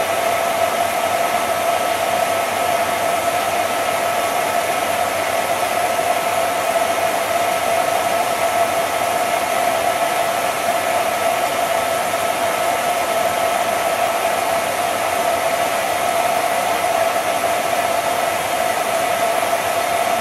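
Cine film projector running: a steady motor whir with a constant whine over hiss.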